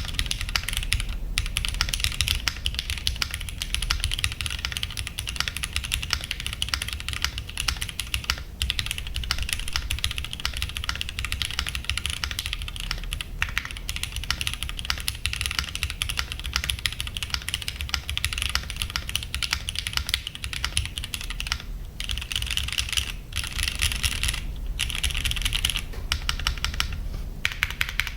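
Fast, continuous typing on a Monsgeek M1 mechanical keyboard with Cherry MX Hyperglide Black linear switches: a dense run of thin, clacky keystrokes with a few short pauses between bursts.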